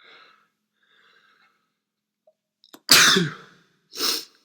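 A man's loud sneeze about three seconds in, preceded by quick sharp inhales, with a falling voiced "choo" in it. A short breathy burst follows about a second later.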